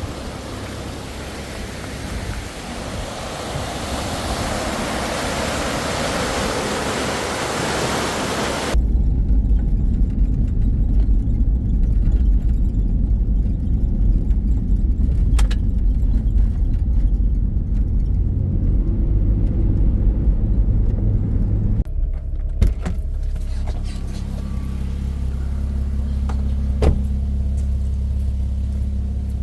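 Swollen creek running high after heavy rain, a steady rushing hiss that cuts off sharply about nine seconds in. Then low rumbling engine and road noise from inside a moving car, settling into a steadier low hum later on.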